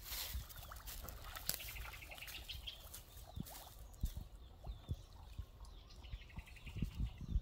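Shallow muddy pond water sloshing and splashing as a man wades through it and gropes in the mud with his hands, with scattered soft thuds.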